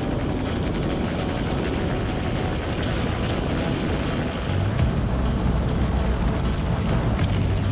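Bass boat's outboard motor running at speed as the hull planes across the lake, with water rushing past. The low engine drone grows a little stronger about halfway through.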